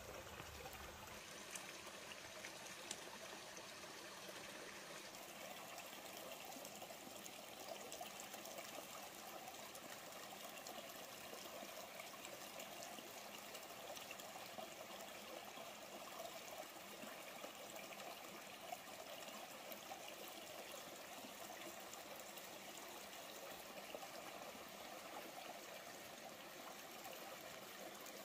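Small rocky stream running over stones: a faint, steady trickle and rush of water, with a few light clicks here and there.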